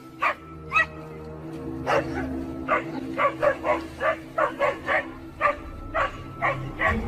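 Dogs barking over and over in short, sharp barks, coming fastest in a run from about three to five seconds in.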